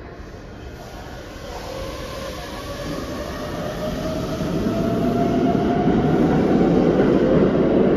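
Keikyu 600 series electric train pulling away from the platform: its motor whine slowly rises in pitch while the running rumble grows steadily louder as it gathers speed.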